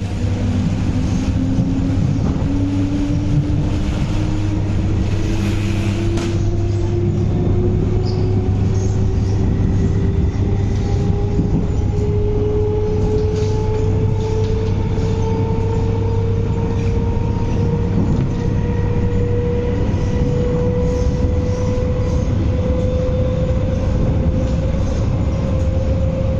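MTR East Rail Line MLR electric train, heard from inside the car as it accelerates: the traction motor whine rises steadily in pitch over a continuous rumble of wheels on rail.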